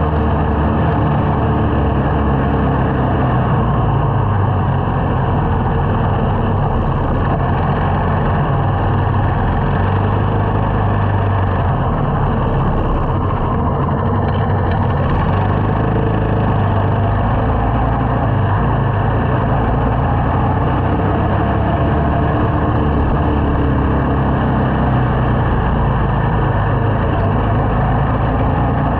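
Small motorcycle riding in traffic: its engine runs at a steady pace under a continuous rush of riding noise.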